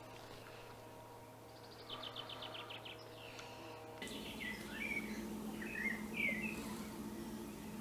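Birds chirping: a quick high trill about two seconds in, then scattered short chirps over the next few seconds, above a faint steady low hum.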